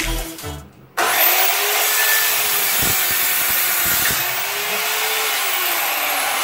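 Oxford OXCS185L 7¼-inch circular saw with a 24-tooth blade starting abruptly about a second in and cutting through a coconut lumber plank. The motor's pitch falls near the end as the cut finishes.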